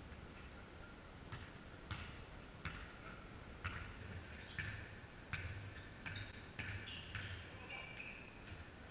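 Basketball being dribbled on a wooden sports-hall floor: faint, sharp bounces at an uneven rate, about one to two a second. Short high sneaker squeaks come in during the second half.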